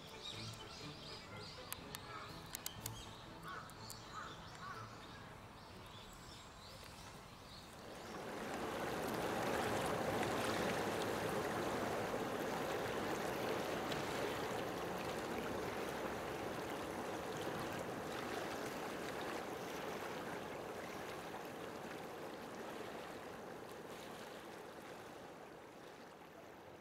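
Faint high chirps from baby chicks over the first few seconds. Then, from about eight seconds in, a steady rush of flowing water swells up, holds, and slowly fades toward the end.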